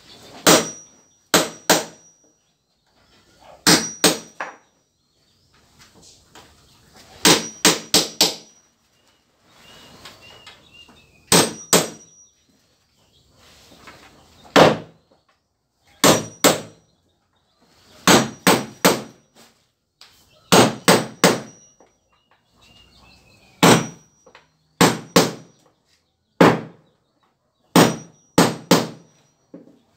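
Hammer driving nails into wooden planks: quick clusters of two to five blows every two or three seconds, many strikes followed by a brief metallic ring.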